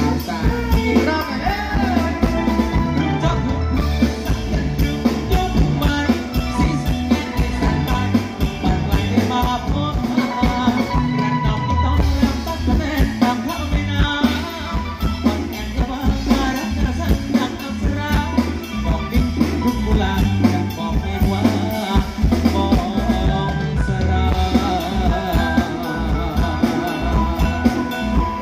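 Live band playing loud amplified music with a steady drum-kit beat, electric guitar and a singer.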